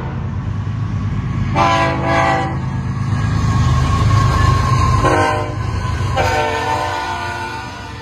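Diesel freight locomotive air horns sounding three blasts: one about a second and a half in, a short one around five seconds, and a longer one starting about six seconds in, over the low rumble of the locomotives' engines.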